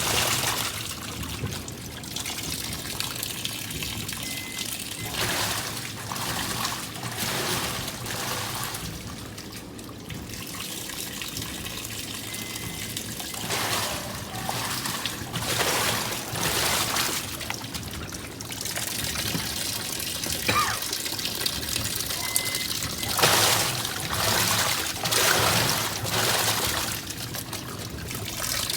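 Water running and trickling into a washing machine as it fills, swelling and easing every few seconds.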